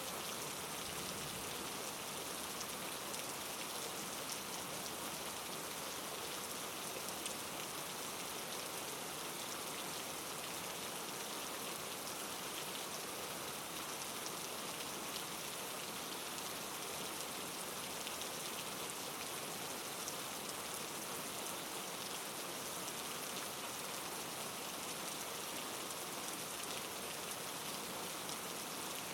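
Steady rain falling and pattering on a surface, with many fine drop ticks.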